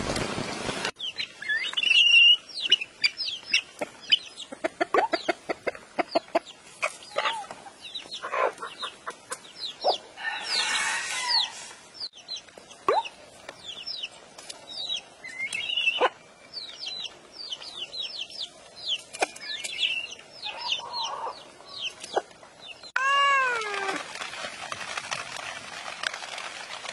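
Chicks and ducklings peeping in rapid high chirps, with hens clucking. About 23 s in, a cat meows once. After that comes a steady hiss of rain.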